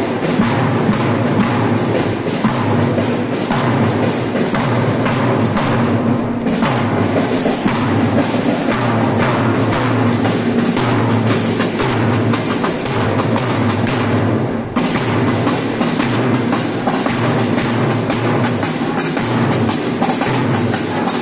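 Marching band playing in the street: field drums beating quick, steady strokes over brass and saxophones sounding a tune.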